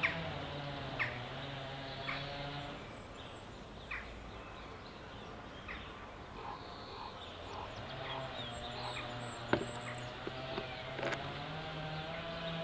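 Small birds chirping and calling in short, scattered notes over a steady low hum of held tones, with one sharp tick about three-quarters of the way through.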